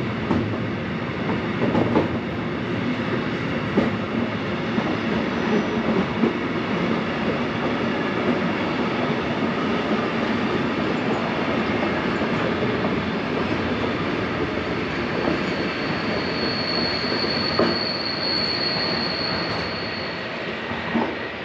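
A train running past on the rails: a continuous rolling rumble with scattered sharp clacks as the wheels cross rail joints. Near the end comes a high, steady squeal lasting about four seconds.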